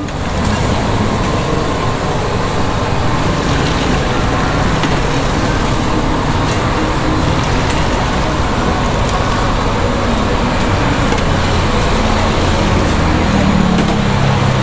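Steady street traffic noise: engines of passing cars and buses running.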